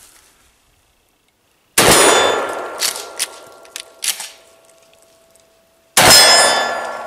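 Pump-action shotgun fired twice, about four seconds apart, at a steel target: birdshot first, then buckshot. Each blast is followed by the steel plate ringing as it fades, with a few sharp clacks between the shots as the pump action is worked.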